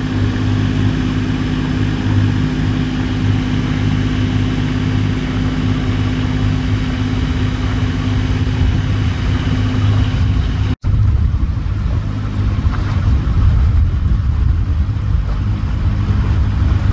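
A sailing yacht's engine running steadily as the boat motors along, a low even hum. The sound drops out for an instant about eleven seconds in.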